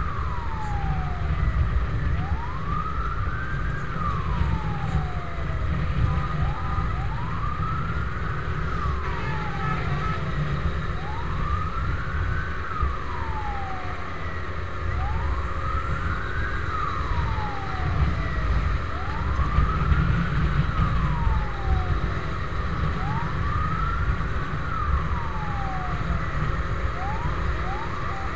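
Fire truck siren wailing, each rising-then-falling sweep lasting about four seconds and repeating evenly, over a heavy, steady low rumble of wind and road noise from a moving motorcycle.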